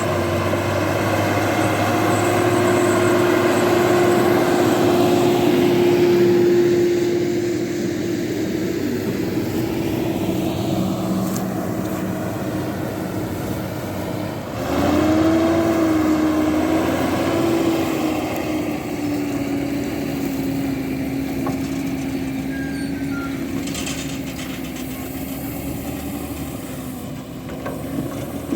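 John Deere 7430 Premium tractor's six-cylinder diesel engine running steadily under load while pulling a slurry tanker. About halfway the engine gets louder and its note dips and wavers, then settles at a slightly lower pitch.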